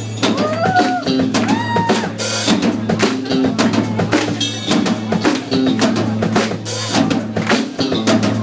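Live rock band playing: drum kit driving a steady beat of bass drum and snare, with electric bass and electric guitars, and two crash-cymbal hits, about two seconds in and again near seven seconds.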